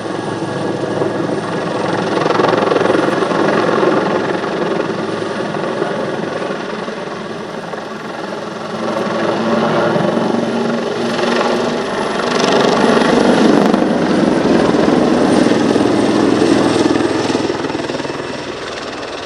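Leonardo Wildcat HMA.2 helicopter flying a display, with continuous rotor and turbine noise that swells as it passes close. A throbbing blade beat is loudest in the second half.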